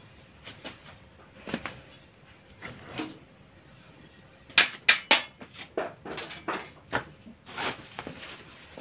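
Sharp knocks and clatter of household things being handled, with a quick flurry of loud knocks about halfway through and a short scraping rustle near the end.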